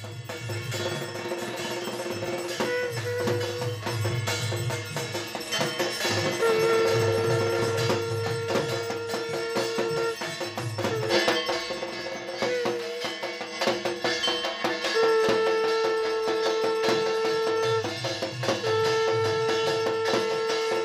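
Evening aarti music: fast, dense drumming and bell strokes, with several long steady held notes of three to four seconds each, most of them in the second half.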